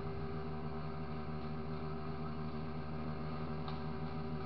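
Honda XR250 Tornado's single-cylinder four-stroke engine running steadily at an even pitch.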